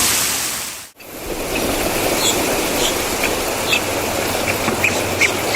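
Steady rushing noise like running water that drops out abruptly about a second in, then returns as a steady water-like rush with scattered short, high chirps.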